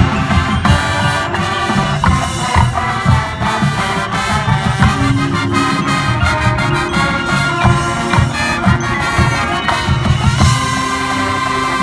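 High school marching band playing: brass and woodwinds over a drumline, with steady drum hits under held chords.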